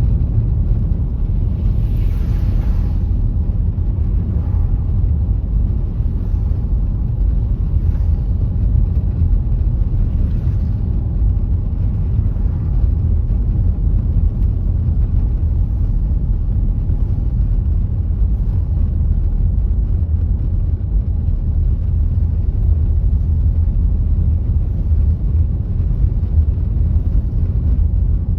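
A car being driven: a steady low rumble of road and engine noise, with a brief hiss about two seconds in.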